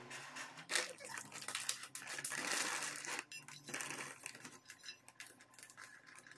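Marie biscuits snapped and crushed by hand into a stainless steel bowl, with crisp cracking and pieces clicking against the metal, mixed with the crinkle of the plastic biscuit packet. Busiest in the first few seconds, then thinning out.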